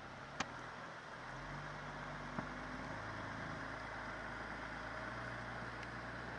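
2020 Chrysler Pacifica AWD minivan's 3.6-litre V6 running at low speed as the van pulls slowly across packed snow, its note lifting a little about a second in. Two short clicks, one near the start and one about two and a half seconds in.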